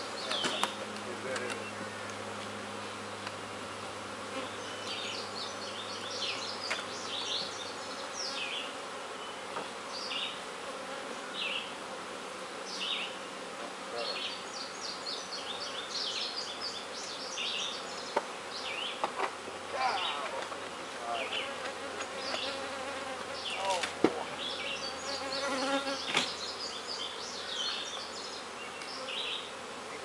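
Honeybees buzzing in a steady hum around opened hives, with a few sharp knocks from the wooden hive boxes being handled.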